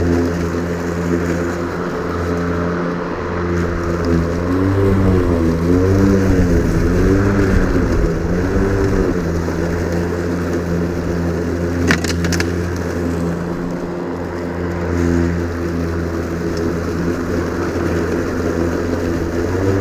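Ryobi 40-volt cordless 20-inch lawn mower running steadily, its electric motor and blade making a constant hum whose pitch dips and recovers several times a few seconds in. A brief tick about twelve seconds in.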